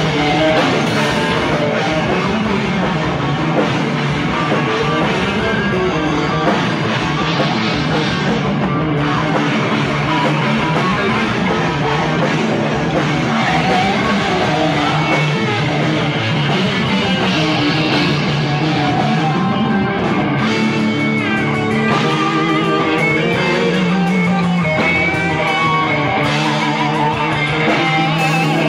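Live rock band playing loud, with electric guitar and drum kit, heard from within the crowd close to the stage.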